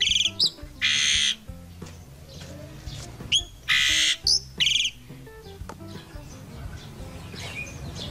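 Caged black-and-white bird calling: short whistled notes and rapid chattering rattles, with a loud harsh rasping screech about a second in and another at about four seconds, then quieter. Background music with a low melody plays underneath.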